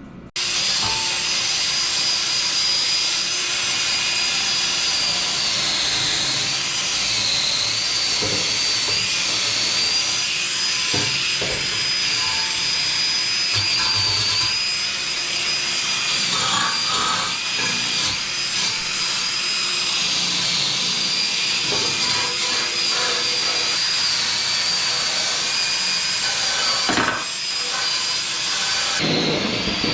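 Cordless DeWalt 20-volt die grinder running at high speed with a steady, slightly wavering high whine, grinding down welds on steel angle iron.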